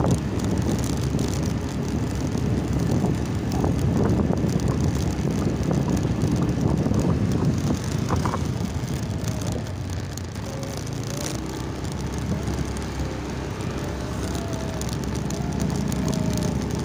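Steady low wind rumble on the microphone while riding along a paved street, with a faint wavering tone in the second half.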